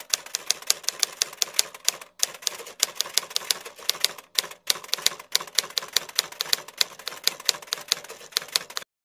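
Typewriter typing sound effect: a rapid run of sharp key clicks, about five a second, with two short breaks. It stops just before the end.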